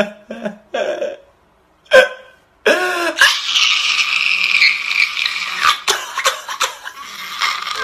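A man crying and wailing: a few short gasping sobs, then about three seconds in a long, strained, loud cry lasting some two and a half seconds, followed by more broken sobbing.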